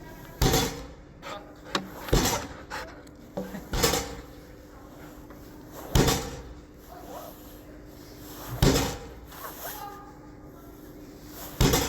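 Dog agility seesaw (teeter) board banging down onto its base, six loud bangs at uneven intervals of about two to three seconds, each with a short ring, and lighter knocks between them.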